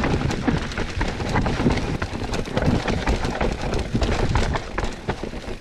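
Mountain bike riding fast down a rough, rocky trail: a constant irregular clatter of tyres and bike knocking over rocks, over a steady low rumble.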